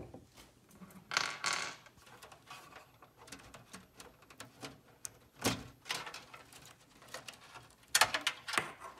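Scattered plastic clicks, knocks and rustles of power-supply cables and connectors being unplugged and pulled out inside a PC case. There is a short rustle about a second in and a cluster of sharp clicks near the end.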